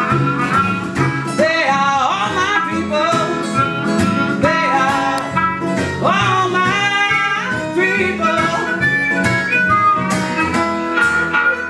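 Country song playing: an instrumental break between sung lines, with a sliding lead melody over a steady beat.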